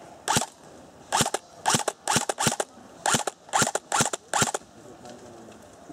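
Airsoft guns firing single shots: about ten sharp pops, irregularly spaced roughly half a second apart, over about four seconds.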